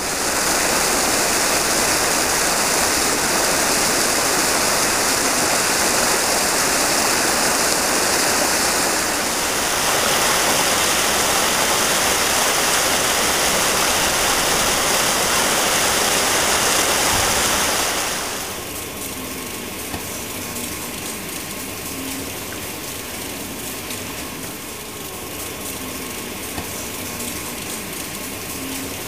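Rushing water churning loudly. About 18 s in it gives way to a quieter steady mechanical hum with a faint held tone.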